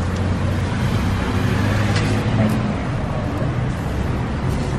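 Steady street traffic noise, with the low, even hum of an engine running close by.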